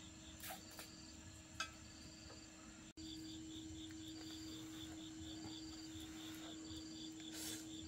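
Crickets chirping steadily in a fast even pulse, about four chirps a second, over a faint low steady hum. A couple of small clicks come early, the sound drops out for an instant about three seconds in, and a short breathy puff comes near the end.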